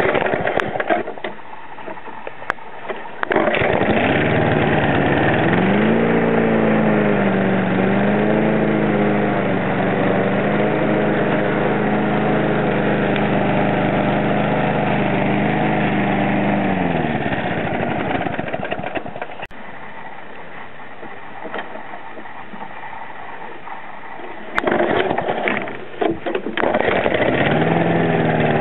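Hayter rotary lawnmower's small petrol engine pull-started about three seconds in, picking up speed and running steadily. About two-thirds of the way through it winds down and stops, and near the end it is started again and climbs back up to speed.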